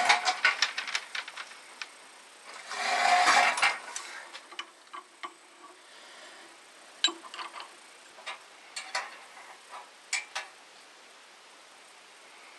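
Metal clinks and clicks of hand tools and steel parts being worked on a tractor-mounted plow's frame, a rapid run of ticks at first and then scattered single knocks, with a louder rasping scrape lasting about a second, about three seconds in.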